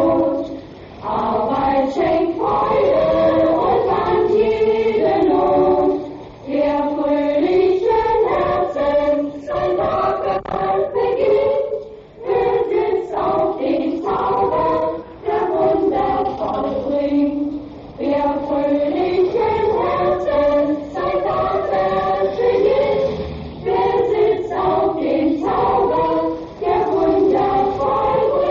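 Women's choir singing a German song about the harvest and the good life, in sung phrases a few seconds long with short breath breaks between them.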